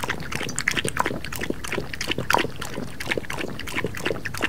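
A person drinking water: a run of quick gulps and swallows.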